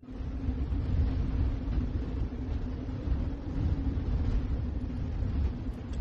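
Blizzard wind gusting hard against the microphone: a loud, rough low rumble that rises and falls, with the hiss of blowing snow above it.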